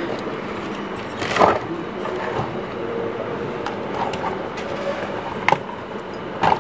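Sharp knocks and clicks of handling on a workbench over a steady background noise. The loudest knock comes about a second and a half in, and two shorter ones come near the end.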